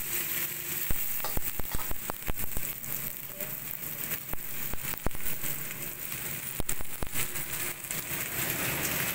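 Luffa gourd pieces sizzling as they are stir-fried in a stainless steel wok, a steady frying hiss. A spatula scrapes and clacks against the wok in irregular sharp knocks, bunched about a second in and again near seven seconds.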